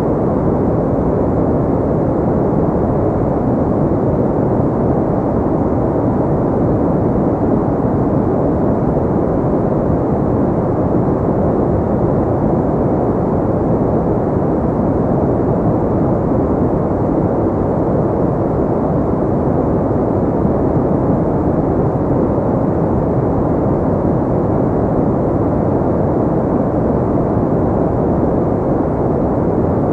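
Pink noise: a steady, even, dull hiss with its weight in the low and middle range and little treble, unchanging throughout.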